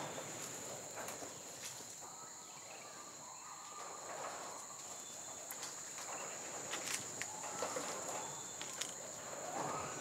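Insects droning steadily at a high pitch, with faint rustling and a few soft clicks over it.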